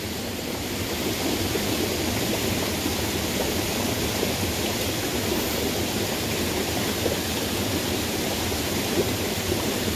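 Steady sound of a rocky forest creek running.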